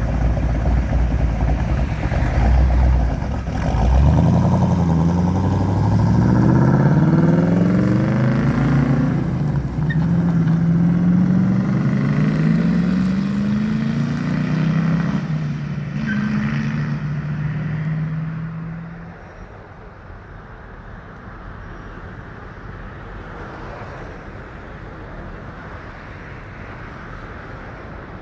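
C2 Corvette Sting Ray's V8 rumbling at low revs, then accelerating away through the gears, its pitch climbing in several rising sweeps. It holds a steady note and then drops off sharply about two-thirds of the way in as the car drives out of earshot, leaving only quiet background.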